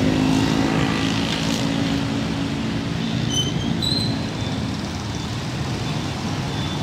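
Street traffic: motorbike engines running, one passing close in the first couple of seconds and then fading into a steady background rumble.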